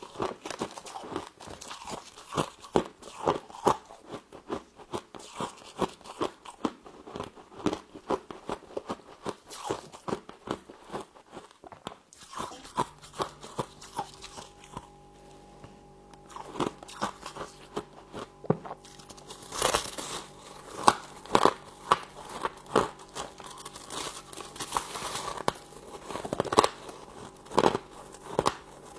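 Close-up crunching and chewing of frost in the mouth: a dense run of crisp crunches from repeated bites. A faint steady hum joins in from about halfway through.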